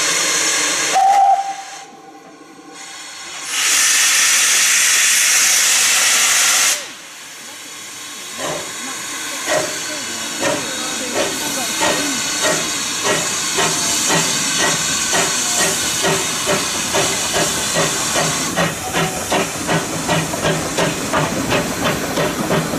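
GWR 1600-class pannier tank locomotive starting a train: steam hissing from the open cylinder drain cocks, with a short whistle about a second in and a second loud burst of hiss. From about a third of the way in, its exhaust beats begin and steadily quicken as it gets away, and the hiss eases near the end.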